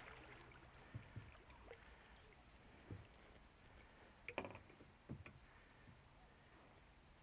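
Faint sounds of a kayak paddling on a creek: a few soft paddle splashes and knocks, spaced a second or so apart, over a faint steady high hiss.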